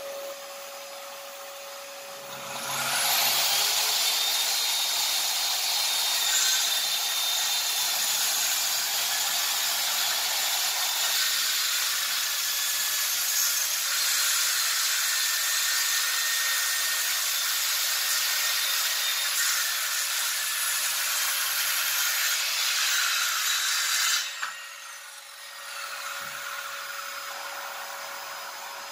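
Hychika CS-190C corded circular saw with a 24-tooth blade. It soft-starts about 2 seconds in, then rips steadily under load through a 5 cm thick wooden plank for about 20 seconds. Near the end it is switched off and winds down, while the attached dust-extraction vacuum keeps running with a steady hum.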